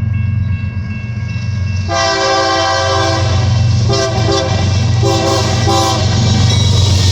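Diesel freight locomotives passing with a steady low rumble. About two seconds in, the lead locomotive's multi-chime air horn sounds one long blast of over a second, then four short toots in quick succession: a played horn sequence.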